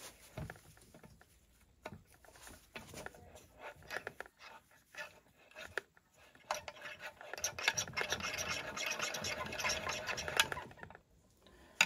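Handling of a Husqvarna 395 XP chainsaw crankcase on a workbench. Scattered light knocks and clicks as it is turned over, then from about halfway through a few seconds of dense, metallic scratching and clicking as a small tool works at the case, stopping shortly before the end.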